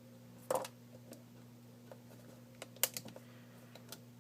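A few scattered light clicks and taps as the BlackBerry Bold 9700's front bezel clips are pried loose with a case opener tool, over a faint steady hum.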